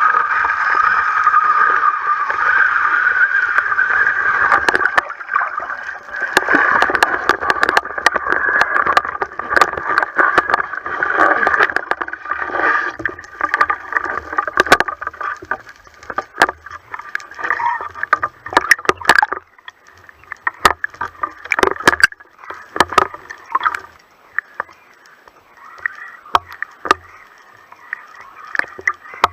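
Underwater sound on a spearfishing dive: a steady droning hum, fading out around halfway, with water noise and many sharp clicks and knocks that stand out as it fades.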